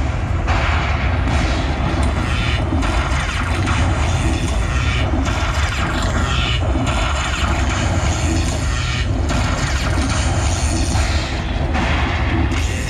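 Lightning Buffalo Link slot machine's bonus-tally sound effects: booming thunder-crash sounds and music, heavy and continuous, as lightning strikes add up the buffalo credit values after the free spins.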